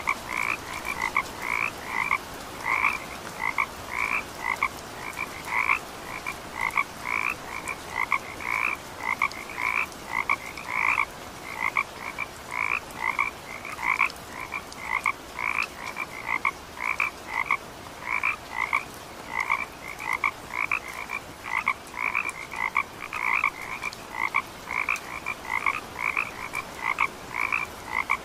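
Frogs calling steadily in a chorus: short calls with a lower and a higher note, repeated about two or three times a second without a break.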